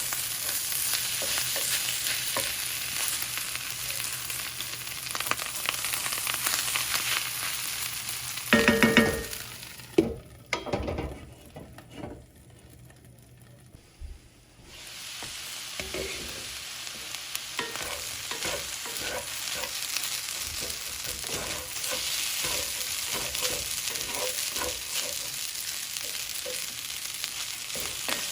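Pork fried rice sizzling in a hot pan while it is stirred and scraped with a spatula. About nine seconds in there is a loud clank with a brief ring, then the sizzle drops away for a few seconds before the frying and scraping resume.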